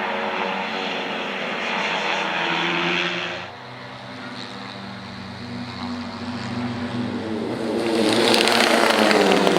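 Racing motorcycles at high revs on track, several engines at once. The sound drops off about three and a half seconds in, then builds with rising engine pitch as more bikes close in, loudest near the end.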